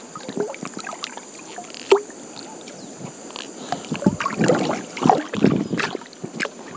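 Water splashing and sloshing with scattered knocks as a fishing net is handled in a river; the splashing is heaviest about four to six seconds in.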